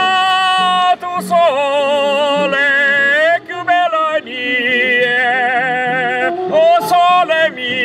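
A man singing in an operatic style, loud long-held notes with wide vibrato, changing pitch a few times with short breaths between phrases.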